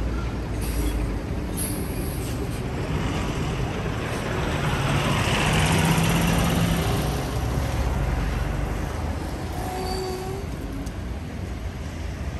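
A road vehicle passing by on a wet street: tyre hiss and engine hum swell to their loudest about halfway through, then fade away.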